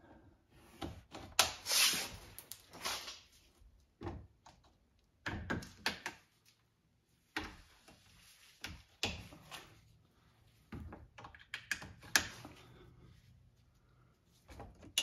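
Plastic push-type retaining clips being pressed by hand into a Toyota Sienna's plastic under-engine shield: an irregular series of sharp clicks and knocks, with brief rustles of the plastic panel being handled in between.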